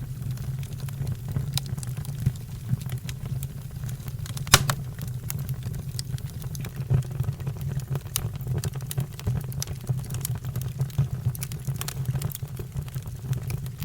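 Fire crackling: a steady low rumble of flames with irregular snapping crackles and one loud pop about a third of the way in.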